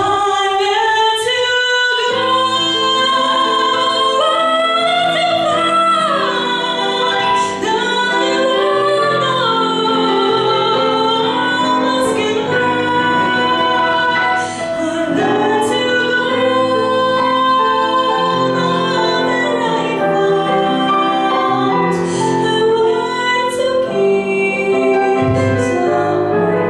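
A woman singing a slow ballad into a microphone, with long held notes, some with vibrato, accompanied by chords on a digital piano.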